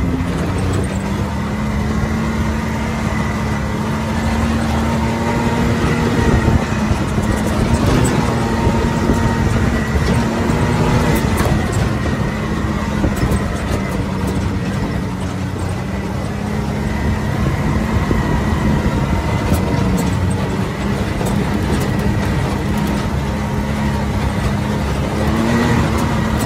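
Can-Am ATV engine running at a steady, even speed while riding over a gravel dirt trail. Tyre and gravel noise lies underneath, with scattered short knocks from stones and bumps.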